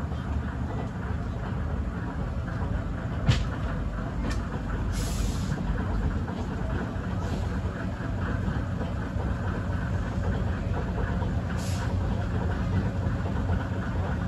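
Small narrow-gauge diesel locomotive running slowly as it draws up alongside, its engine a steady low rumble. A sharp knock comes about three seconds in.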